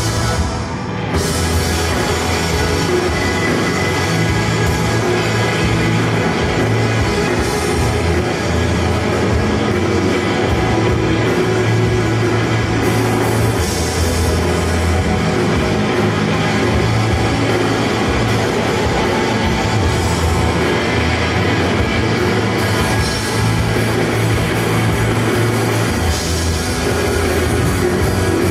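Live rock band playing loudly: electric guitar through Marshall amplifiers over a drum kit, with a short drop in level about a second in.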